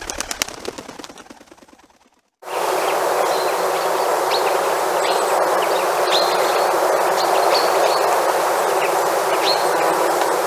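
Small birds chirping: short, high calls that fall in pitch, about one every second, over a steady rushing background that starts abruptly a little over two seconds in. Before that, a run of rapid ticks fades out to a moment of silence.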